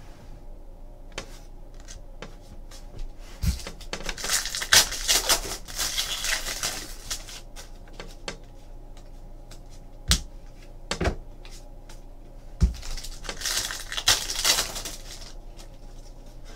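Trading cards being handled and flipped through close to the microphone: light clicks and taps of card edges with two longer spells of sliding, rustling card noise.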